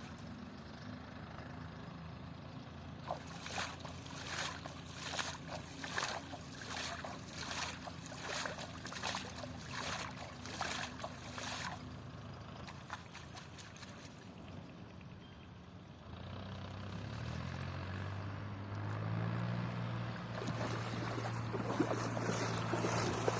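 An engine running with a steady low hum. For about ten seconds early on there is a regular run of sharp strokes, about two a second. From about sixteen seconds in, a louder, lower engine hum comes in and builds.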